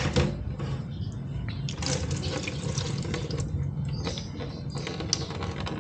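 Green engine coolant pouring from the opened radiator drain of a Yamaha NMAX 155 scooter into a plastic container, a steady stream of liquid splashing into the liquid already collected.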